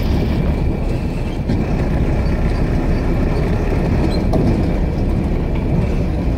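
Steady low rumble of a vehicle's engine and road noise, heard from inside the cab while it drives slowly along a rough road.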